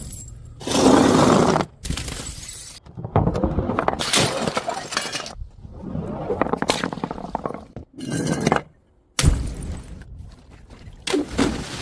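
Glass bottles smashing and shattering, with broken glass clinking and scattering: a string of separate breaks cut one after another, each starting and stopping abruptly.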